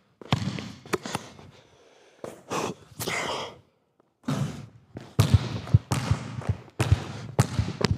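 Basketball dribbled on a hard indoor court: a quick, even run of bounces through the second half, after a few scattered thuds in the first half.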